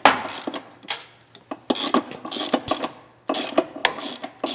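Ratchet wrench clicking in several short bursts as it turns a homemade thread-chasing tap, cut from an old spark plug, in a spark plug hole whose threads are carbon-fouled.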